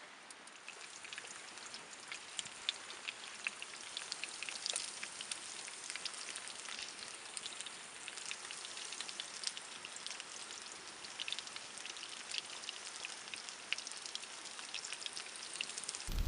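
Campfire crackling and sizzling under a grill over hot coals, with chicken and a billy can of sauce on it: a steady dense patter of small pops and ticks.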